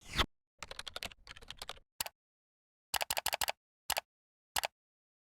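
Runs of quick keyboard-typing clicks, a burst of keystrokes about a second in, another near three seconds, then a few single taps, with dead silence between them, like a typing sound effect.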